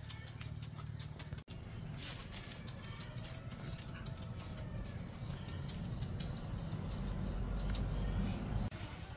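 A young puppy on a metal chain leash whimpering as it is led and pulls back, the chain links rattling and clicking. A low rumble comes in about seven seconds in and cuts off shortly before the end.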